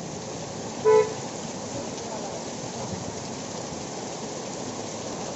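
Heavy monsoon rain pouring steadily onto a street. About a second in, a vehicle horn gives one short, loud toot.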